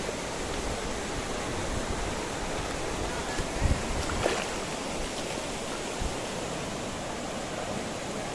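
River water flowing with a steady rush, with a few dull bumps about three and a half to four seconds in and once more about six seconds in.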